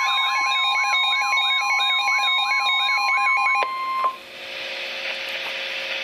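S.A.M.E. weather alert radio sounding its warning alarm for a special marine warning: a repeating pattern of about three rising chirps a second over a steady high tone, the 1050 Hz NOAA Weather Radio warning tone. The chirping cuts off suddenly about three and a half seconds in, and the tone stops half a second later, leaving radio hiss.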